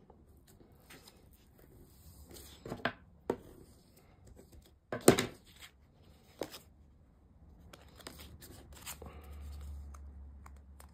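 Stiff cardstock being handled and folded along its score lines: a few short, crisp crackles, the loudest about five seconds in, then a soft rustle of paper sliding near the end.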